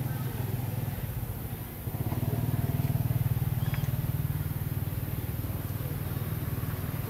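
A motor engine running steadily with a low, evenly pulsing hum that grows louder about two seconds in.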